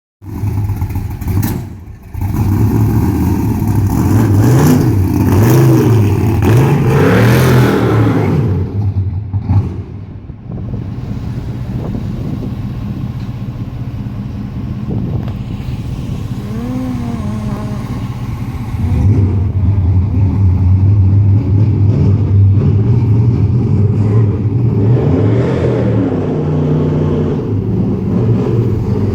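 1969 Chevrolet Chevelle's engine running and revving, its pitch rising and falling several times over the first eight seconds, then running more quietly for about ten seconds before growing louder again.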